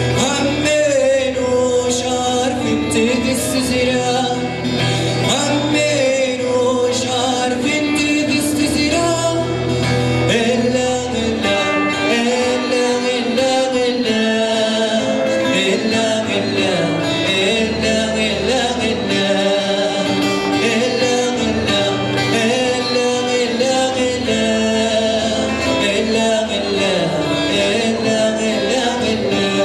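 A man singing a slow song while strumming an acoustic guitar, his voice sliding between notes over steady chords.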